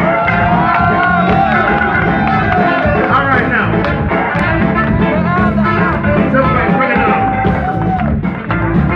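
Live band playing a song, electric guitars, bass and drums, with a man singing a held, bending melody over it.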